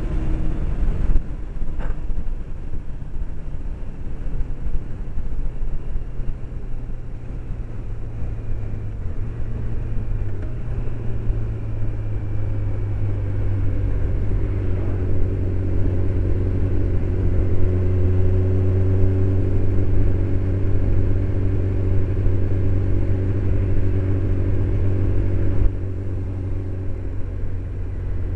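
Low wind rumble and a Honda CBR600's inline-four engine, heard from a camera inside the rider's helmet. From about twelve seconds in, the engine holds a steady note.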